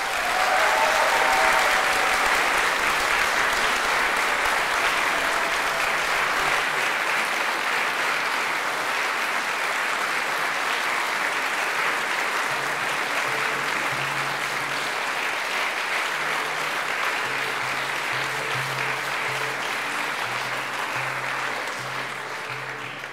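Audience applauding, the clapping strongest at first and dying away near the end.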